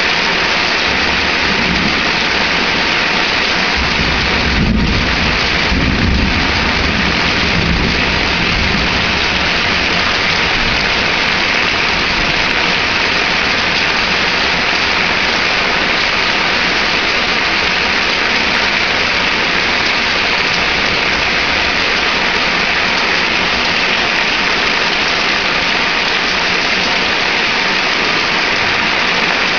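Heavy rain pouring steadily, with a low rumble of thunder from about a second in until about eight seconds in.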